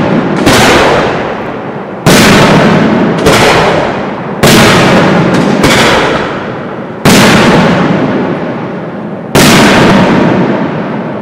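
Aerial firework shells bursting overhead, about seven loud booms at uneven intervals of one to two seconds. Each bang is followed by a long fading echo that runs into the next.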